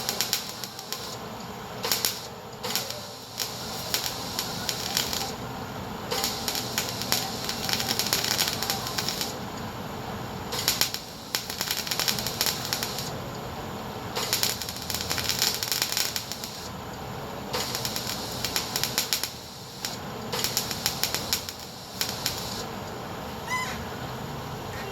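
Gas-shielded MIG welder crackling in short bursts a second or two long with brief pauses between, as weld is laid to fill holes in a pickup bed's sheet metal.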